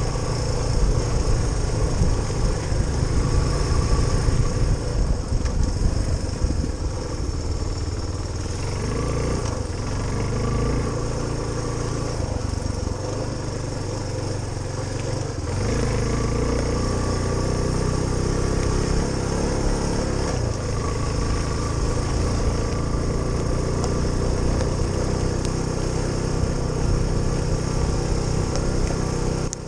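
Suzuki DR350SE's single-cylinder four-stroke engine running continuously, its pitch rising and falling with the throttle through the middle.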